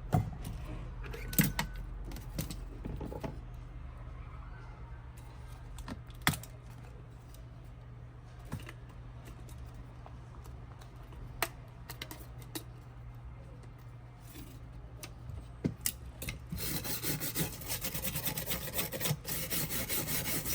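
Scattered clicks and taps of small tools being handled on a smartphone during a screen repair, over a steady low hum. In the last few seconds a continuous scraping rub sets in.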